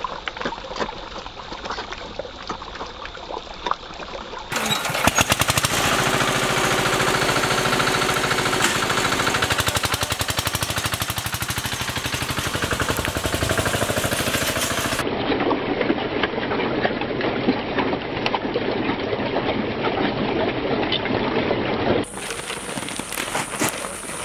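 Catfish thrashing and splashing at the water surface as they crowd for feed. From about four seconds in, a louder small engine chugging with a steady, rapid beat for about ten seconds, followed by a rougher noisy stretch.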